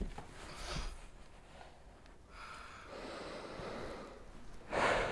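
A person breathing heavily, with a loud, sharp breath near the end.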